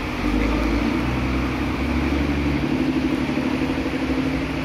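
Diesel engine of a Ladju intercity coach running steadily as it pulls away, with a deep low rumble that drops out about halfway through. The hiss of heavy rain runs underneath.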